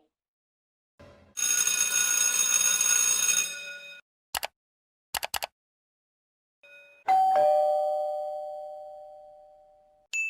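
Separate sound effects in sequence: a steady harsh electric ringing for about two and a half seconds, a few short clicks, then a two-note ding-dong doorbell chime, higher note then lower, ringing out slowly. Another single ding starts right at the end.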